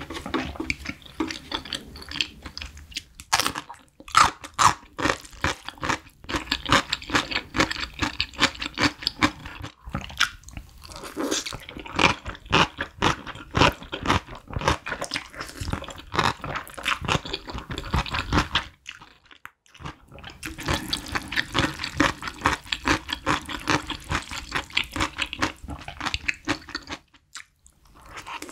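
Close-miked eating sounds: wet chewing and slurping of thick cheese-sauced instant noodles, with quick mouth clicks, in several runs broken by brief pauses.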